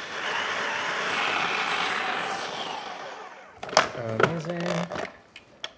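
Food processor running as it blends a wet jerk paste of scallions, scotch bonnets and ginger, a steady whirring churn that winds down about three seconds in. A few sharp clicks and knocks follow.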